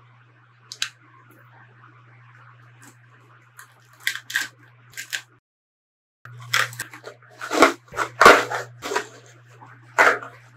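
Bubble wrap crinkling and rustling in irregular bursts as it is cut open with a folding knife and pulled off a megaphone. It is loudest in the second half, over a faint steady low hum.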